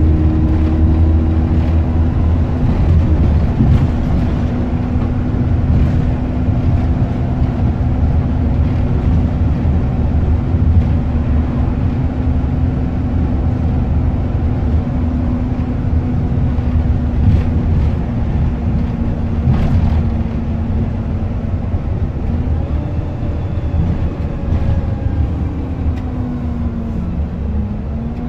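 Optare Versa single-deck bus heard from inside the saloon while under way: a steady engine drone over road rumble. The engine note drops about two seconds in and rises slightly again near the end.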